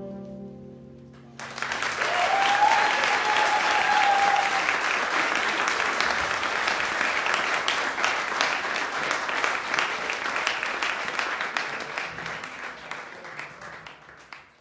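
The band's last held chord dies away, then the audience breaks into applause about a second and a half in; the clapping is strongest just after it starts and thins out and fades near the end.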